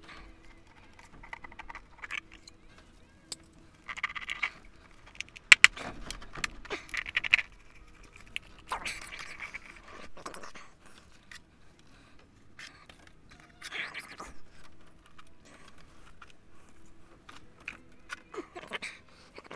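Plants and plastic hydroponic-tower parts being handled and moved: irregular scraping, rustling and light clicks and knocks, coming in several short bursts.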